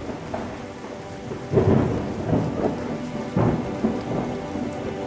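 Thunderstorm sound effect: steady rain with rolling claps of thunder, loudest about one and a half, two and a half and three and a half seconds in.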